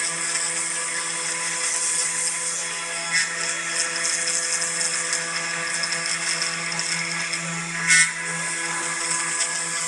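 Desktop CNC engraving machine carving a wooden plaque at a feed rate of F600: the spindle runs with a steady hum and a high hiss as the bit cuts the wood. The cut gets briefly louder twice, about three seconds in and near the end.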